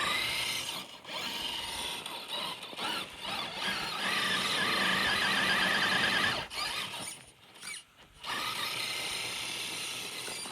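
High-pitched whine of a small vehicle's motor and drivetrain running through snow, loudest in the middle, dropping away briefly about two-thirds of the way through and then coming back.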